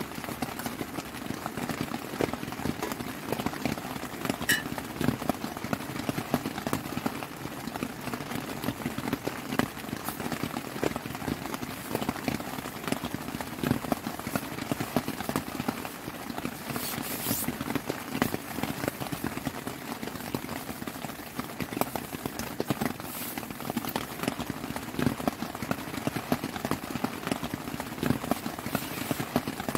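Heavy rain drumming on a tent's fabric, heard from inside the tent: a dense, irregular patter of drops over a steady hiss.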